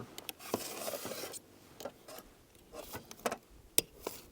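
Cookware being handled as the ember oven is opened and the chicken is checked for doneness. A sharp clack at the start is followed by about a second of rasping scrape, then a few light clicks and scrapes.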